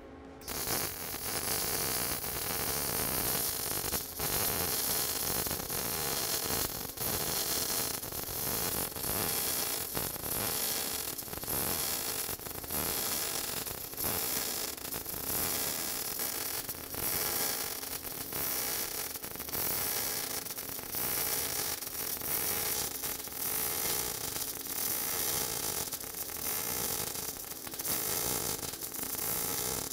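MIG welding arc running a steady bead: a continuous crackle that starts about half a second in, the even sound of a weld with the wire speed set right.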